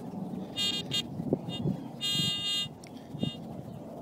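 Detector Pro Pistol Probe pinpointer sounding its buzzy alert tone in several short bursts and one longer one about two seconds in, as its tip is held over a buried target: the sign that metal is right below it. A few faint thumps come from the probe being handled.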